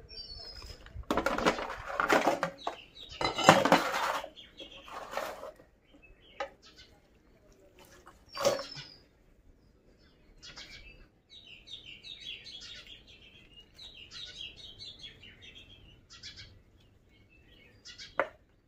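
Wet clattering and rustling of cut fish pieces handled against an aluminium bowl for the first five seconds, then birds chirping.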